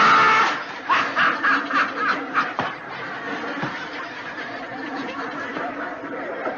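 Laughter from an old TV comedy clip, loudest in the first half second and then trailing off in broken snickers.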